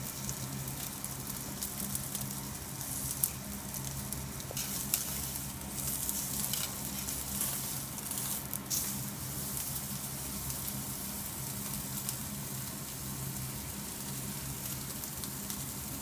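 A steak sizzling on a charcoal grill grate, with a steady hiss and crackling that is busiest in the middle, over a steady low hum. Two sharp clicks stand out about three and five seconds in.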